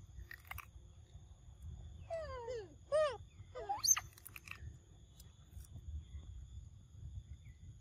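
Macaques giving three short calls about two to four seconds in: one sliding down, one rising and falling, then a sharp rising squeal. A steady high whine and a low rumble run underneath, with a few faint clicks.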